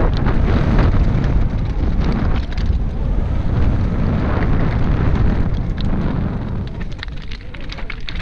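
Commencal Meta SX mountain bike descending a loose, rocky trail: its tyres crunch over stones and the bike rattles, heard as many sharp clicks and knocks, under a loud, rough rumble of wind buffeting the GoPro's microphone. The rumble eases a little near the end.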